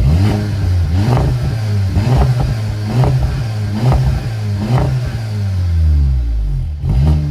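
Volkswagen Golf GTI Mk7 Performance's 2.0-litre turbocharged four-cylinder revved in quick throttle blips, about one a second, settling lower near the end. Its exhaust, leaking at the clamp joints and sealed with a makeshift repair, is still blowing a tiny bit but much better.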